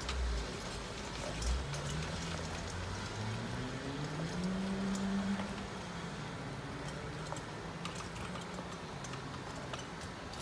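An engine revving up: its note rises about two seconds in, holds for a few seconds and then settles back to a steady run. Toward the end, sharp clicks and rattles of a hand trolley's wheels crossing the wooden boards over the rails.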